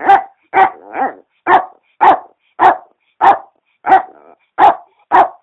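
Small dog barking in a steady, even series of short barks, about two a second.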